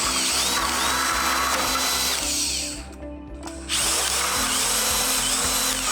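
Electric drill driving a hole saw into a door. It runs for nearly three seconds, stops briefly, then runs again for about two seconds.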